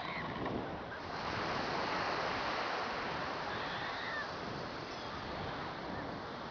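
Steady rushing of wind and surf, swelling about a second in, heard through a camera hanging from a kite over the sea.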